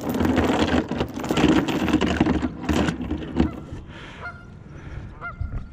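Heavy steel anchor chain clanking and rattling over wooden dock boards as it is handled and let go back into the water, loudest in the first two and a half seconds. Geese honk a few times near the end.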